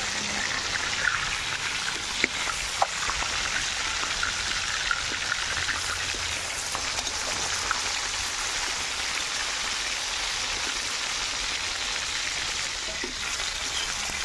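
Fish steaks sizzling steadily as they shallow-fry in hot mustard oil in an aluminium kadhai, with a few short clicks and scrapes of the metal spatula turning them.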